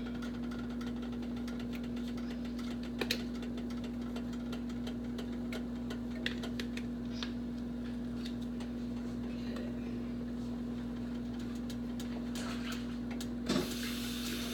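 A steady background hum with a few sharp clicks and taps from spice containers being handled, and a short rustling noise near the end.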